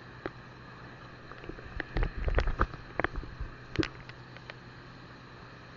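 Water splashing and knocking around a small wooden outrigger boat, with a cluster of sharp splashes and knocks and a few low thumps between about two and four seconds in, over a low steady hum.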